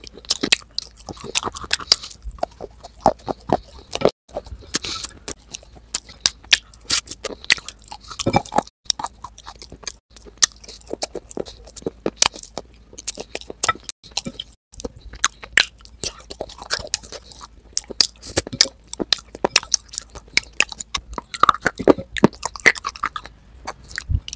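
Close-up mouth sounds of someone biting and chewing hard, crunchy clay coated in wet grey clay paste, with many irregular crisp crunches.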